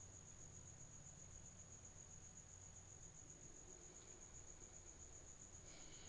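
Near silence: faint recording noise with a steady, high-pitched whine pulsing evenly throughout.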